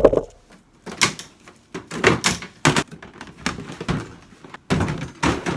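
Irregular knocks, clatter and rustling of cables and gear being rummaged through in a packed plastic storage bin.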